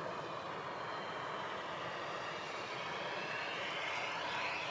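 Radio-control FMS 1400mm P-40B warbird flying overhead, its onboard sound system playing a simulated piston-engine sound over the electric motor and propeller. The pitch rises and the sound grows loudest near the end as the plane passes close.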